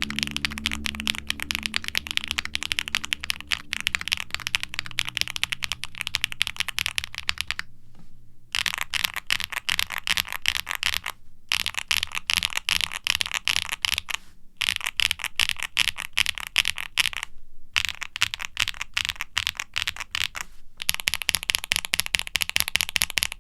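Fast typing on a QwertyKeys QK65 mechanical keyboard with factory-lubed HMX Poro linear switches on a polycarbonate plate in a foam-dampened aluminium case: a dense run of muted clacking keystrokes. From about the middle on, the typing breaks off in short pauses every three seconds or so.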